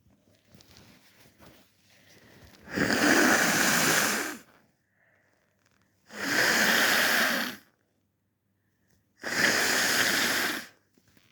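A person blowing their nose into a tissue three times, each blow a long noisy blast of about a second and a half to two seconds, with faint rustling before the first.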